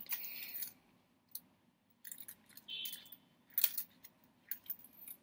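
Rummaging in a wallet for a SIM card: scattered light clicks, crisp rustles and small clinks, with a short pause about a second in.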